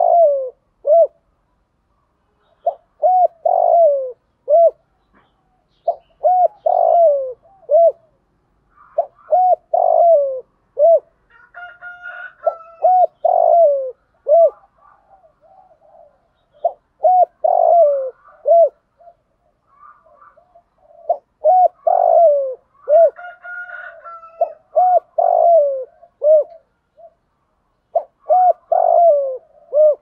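Spotted dove cooing: repeated phrases of three or four short coos, one note in each sliding down in pitch, a new phrase every three seconds or so.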